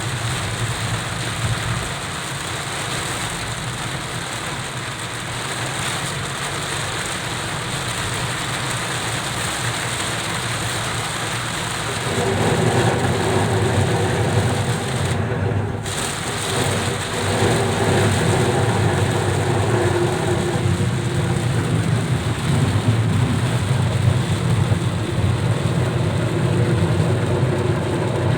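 Heavy rain beating on a car, heard from inside, over the car's engine and road noise. About twelve seconds in, a louder low rumble sets in and holds.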